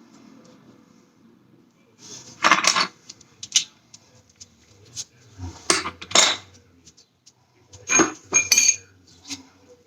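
Metal objects clanking and clinking in a string of separate knocks, several of them loud. A few near the end ring with a short metallic note.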